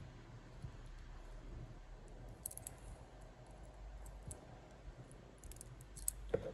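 Faint scattered clicks of pliers gripping and bending the small metal base of a model toy truck, a few light ticks about two and a half seconds in and again near the end.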